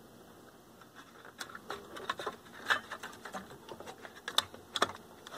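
Scattered light clicks and taps of a sheet-metal dial-lamp bracket being handled and pushed into place inside a stereo receiver's chassis.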